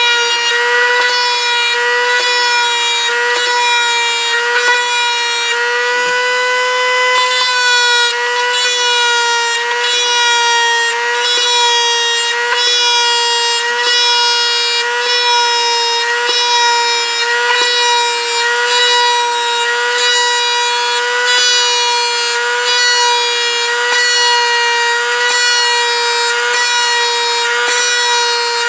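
Dremel rotary tool running at high speed with a steady whine, spinning a sharpened brass tube that is touched lightly to the model's skin about once a second to cut each rivet ring, the pitch dipping slightly with each touch.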